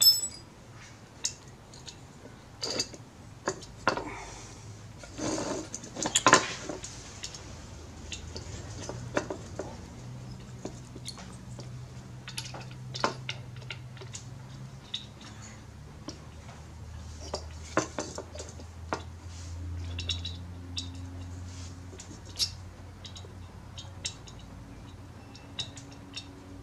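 Metal clinks, taps and scrapes of hand tools and small engine parts being handled while a 26cc two-stroke weed eater engine is stripped down on a concrete floor, with a cluster of louder knocks about five to six seconds in.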